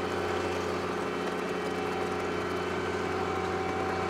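Snow groomer's diesel engine running steadily, a constant even drone, while its rear tiller turns through the snow.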